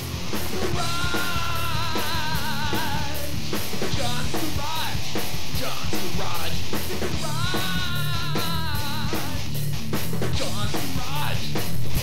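Loud rock music: a singer holding long wavering notes over a steady, driving drum beat.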